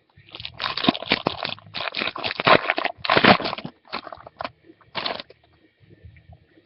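Foil wrapper of a football trading card pack being torn open and crinkled: a quick run of crackling rips for about five seconds, then a few faint rustles.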